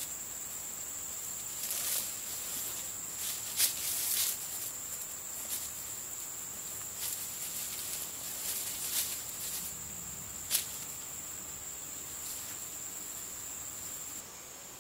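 Steady high-pitched insect drone, with scattered rustles and soft knocks as shoes are pulled off and feet shift over dry pine needles. The drone cuts off abruptly near the end.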